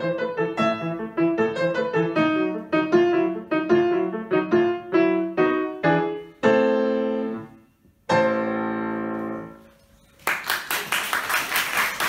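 Grand piano played in quick repeated chords, ending on two long chords left to ring and die away. After a short pause, applause starts near the end.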